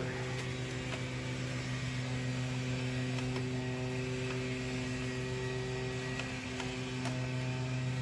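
Steady electrical mains hum, a low buzz with a stack of overtones, with a few faint clicks over it.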